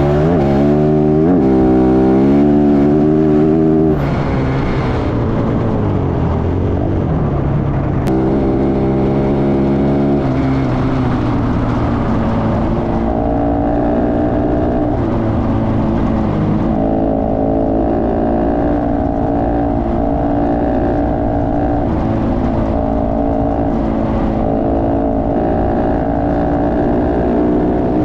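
Motorcycle engine running under way on a gravel road, its pitch rising as it accelerates in the first few seconds, then holding fairly steady at cruising speed with small shifts, over a constant rush of wind and road noise.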